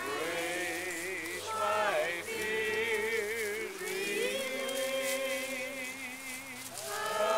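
Voices singing a slow song, holding long notes with a wavering vibrato and sliding between pitches.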